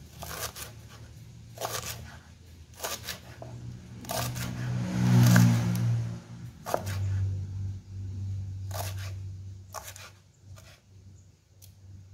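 Kitchen knife slicing through spring onion stalks and chopping down onto a wooden cutting board, in irregular strokes a second or two apart. A low steady hum runs underneath, loudest about halfway through.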